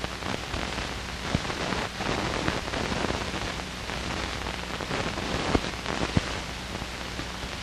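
Steady hiss of an old film soundtrack with a low hum and a few faint crackles; no shots are fired.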